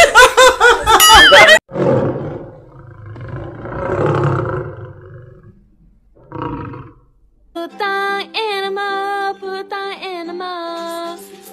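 A man's loud laughter, cut off abruptly about a second and a half in. Then a person's rough, noisy vocal sound rising and falling over a few seconds, with one short burst after it. From about two thirds of the way in, a simple melody of held notes that step in pitch.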